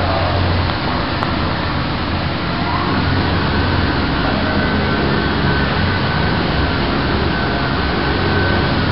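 TOPCUT 6 automatic fabric-cutting machine running: a loud, steady mechanical rush and low hum, typical of the vacuum blower that holds the fabric stack down under its plastic film. A thin, steady high whine comes in about three seconds in, after a brief glide in pitch.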